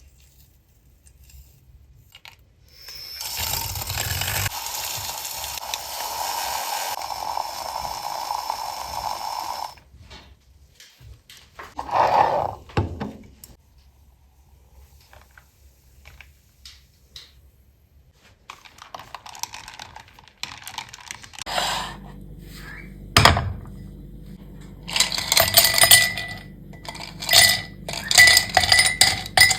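Coffee-drink preparation at a home cafe counter. A steady hissing whoosh lasts about seven seconds, followed by a brief pouring-like rush. Later a small machine starts humming under a run of sharp clinks of glass and metal utensils.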